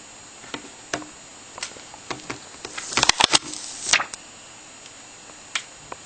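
Scattered light clicks and taps of hands handling small objects, with a quick run of sharp clicks and a short rustle about three seconds in.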